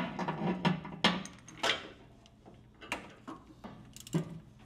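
Metal clicks and clanks from a ratchet, extension and oil filter cap socket being fitted onto the oil filter and worked to loosen it. There are several separate sharp clicks, irregularly spaced, each with a short metallic ring.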